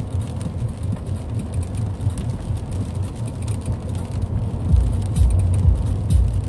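Inside a moving car on a rain-wet road: a steady low rumble of engine and tyres with hiss from the wet tarmac, growing louder about three-quarters of the way through.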